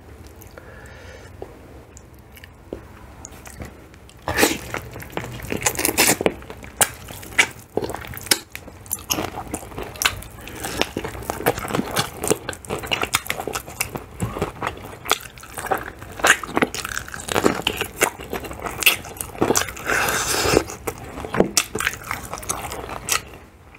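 A person eating crispy spicy fried chicken close to the microphone: wet chewing, then from about four seconds in, many sharp crunches as the fried crust is bitten and chewed.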